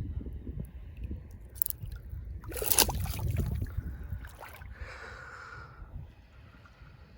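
Water sloshing and gurgling close to the microphone, with a louder splash about two and a half seconds in and a softer one near five seconds.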